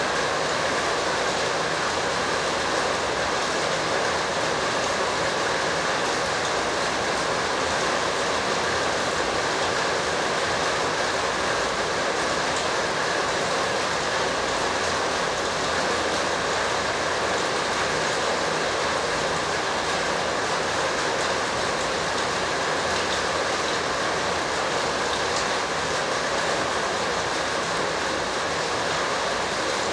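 Steady, even rushing noise with no distinct events, unchanging throughout.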